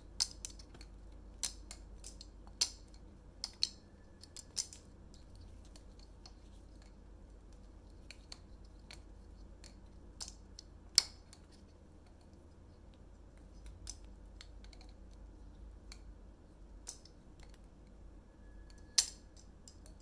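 A clear PVC Squiddy-U clone balisong trainer being flipped by hand. The plastic handles clack together and against the pins in sharp, irregular clicks. Several come in the first few seconds, then a quieter stretch, with single loud clacks about halfway through and near the end.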